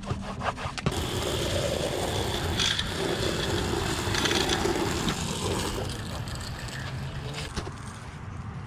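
Water from a hose spray nozzle on its jet setting spraying onto rubber car floor mats: a steady hiss that starts about a second in and tapers off toward the end.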